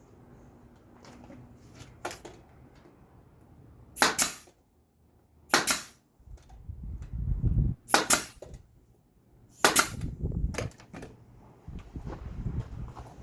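Brad nailer firing, four loud sharp shots at uneven intervals a second and a half to two and a half seconds apart, driving 1-inch brad nails into wood, with fainter knocks of handling between.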